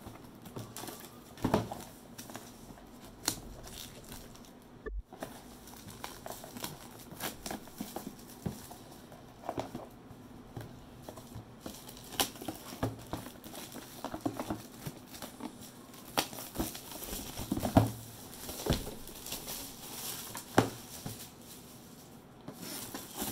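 Clear plastic shrink wrap being torn and peeled off a cardboard box, crinkling and crackling irregularly throughout, with a few louder sharp sounds.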